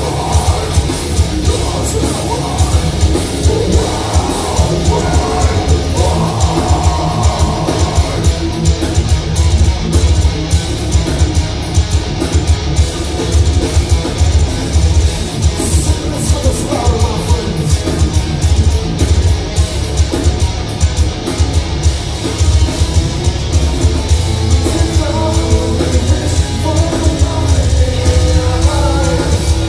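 Heavy metal band playing live at full volume: distorted electric guitars and fast, dense drumming, with vocals over the top.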